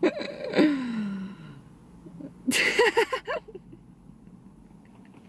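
A woman laughing: a long falling vocal sound like a sighing laugh, then a short quick run of laughter about two and a half seconds in.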